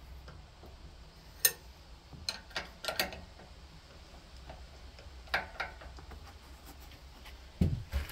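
Scattered sharp metallic clicks and clinks of a socket ratchet and wrench working the nut and jam nut on a lawn tractor's steering tie rod, with a duller knock near the end.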